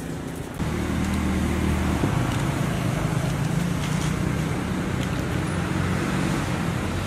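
A motor vehicle's engine running steadily, coming in louder about half a second in and holding an even low pitch.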